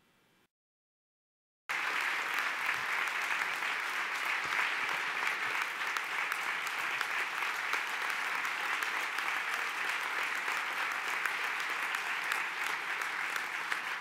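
Large audience applauding: dense, steady clapping that starts suddenly about a second and a half in and thins slightly near the end.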